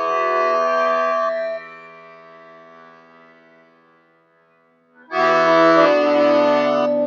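Instrumental music of long held chords: a chord cuts off about a second and a half in and the sound dies away to quiet, then a loud new chord comes in suddenly about five seconds in.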